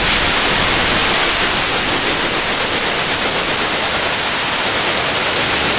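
Steady hiss of computer-generated white noise, even throughout and heavier in the treble than the bass.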